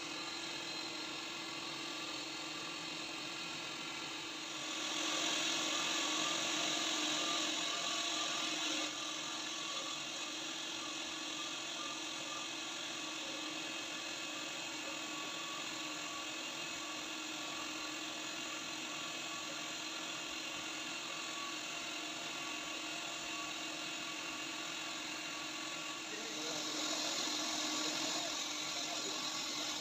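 Bridgeport CNC vertical machining centre running, a steady whine of several fixed tones, while machining aluminium plate. It gets louder and hissier twice: from about four and a half seconds to nine seconds in, and again near the end.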